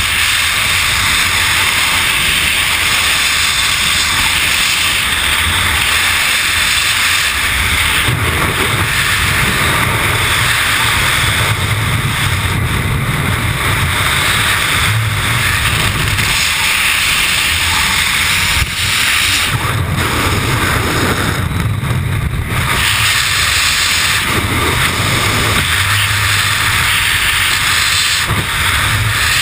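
Freefall airflow rushing over a skydiver's helmet-mounted camera microphone: a loud, steady rush of wind noise, with a low buffeting rumble that swells and fades several times.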